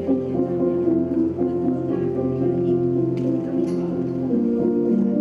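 Slow instrumental background music of long sustained notes over a held bass note; the harmony shifts about four seconds in.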